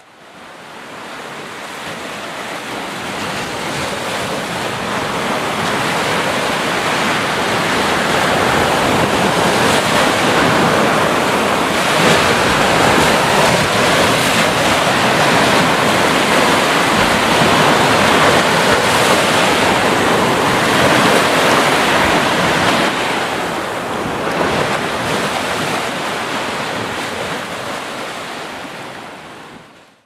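Rough sea surf: waves breaking and foam washing in, a continuous rush that swells and eases. It fades in over the first few seconds and fades out at the end.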